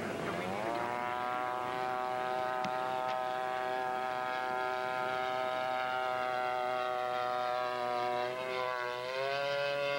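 Radio-controlled model biplane's engine running at high throttle in flight, a steady buzzing whine that climbs in pitch in the first second, holds, then dips briefly near the end and rises again.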